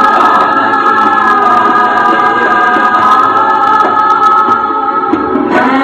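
A chorus of children's voices singing in unison, holding one long note that changes near the end.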